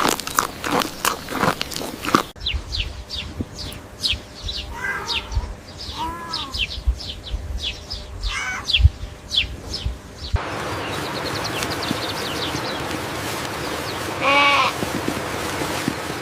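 Cut-together farm-animal sounds: many short, high, falling chirps with a few brief bleats among them. After about ten seconds this gives way to a steady hiss with one clear bleat near the end.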